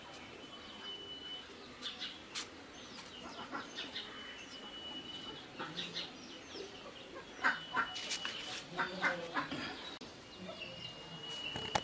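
Birds calling and chirping: a high, steady whistled note comes four times, each held about a second, among many short chirps, with a busier run of sharp chirps about two-thirds of the way through.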